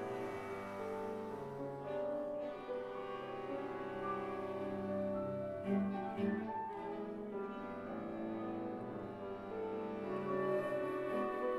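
Contemporary chamber ensemble of flute, clarinet, violin, viola, cello and piano playing overlapping sustained notes, with two short louder accents a little past the middle.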